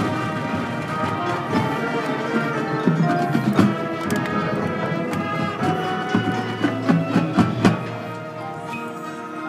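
A marching band playing live: brass and woodwinds holding sustained chords, with sharp percussion strikes about three and a half seconds in and a cluster of them around seven seconds in.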